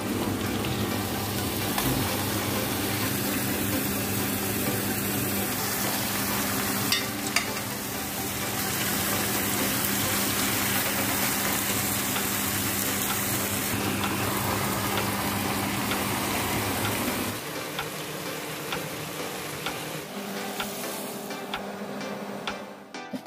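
Beef and potato chunks sizzling in a hot metal pot while a spoon stirs them, with a couple of sharp knocks of the spoon against the pot. A low steady hum under the sizzle stops about three-quarters of the way through, after which the sizzle carries on a little quieter.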